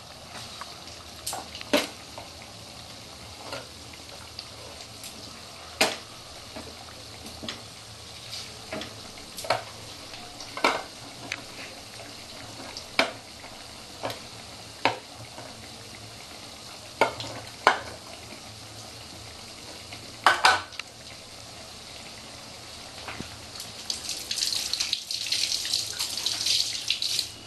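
Onion pakoras of gram-flour batter deep-frying in hot oil in a kadai: a steady sizzle with sharp pops and crackles every second or so. The sizzle grows louder and denser near the end.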